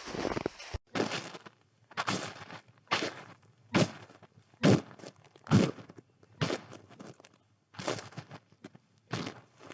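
Footsteps crunching through snow at a steady walking pace, about one step a second, each step a short crunch. The first moment is a denser crunching that cuts off abruptly before the even steps begin.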